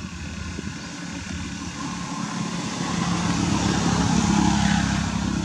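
A motor vehicle's engine running, with a steady low hum that grows louder to a peak about four seconds in and then eases off.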